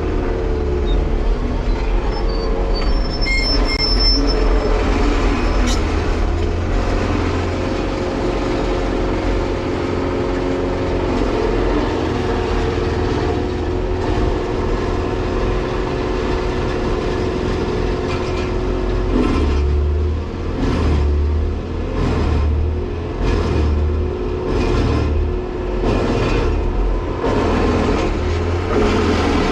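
Volvo 235EL excavator and a wood chipper running together: a steady heavy diesel drone with a held whine. About two-thirds of the way through, the low rumble starts pulsing roughly once a second as the load comes and goes.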